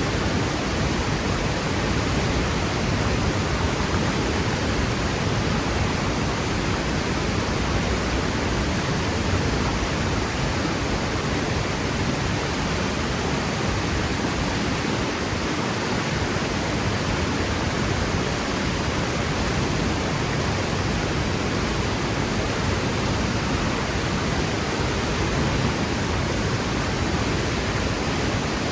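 Waterfall plunging steadily into its pool, a constant full rush of falling water with no breaks or changes.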